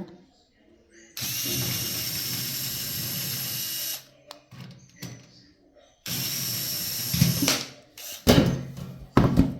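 Small electric screwdriver motor running in two steady runs, about three seconds and then a second and a half, followed by a few short knocks.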